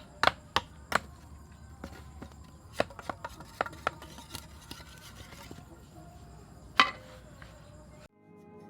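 Chopping strokes, sharp knocks in an uneven rhythm: four quick ones in the first second, then scattered strokes and one loud stroke near the end, before the sound cuts to soft music.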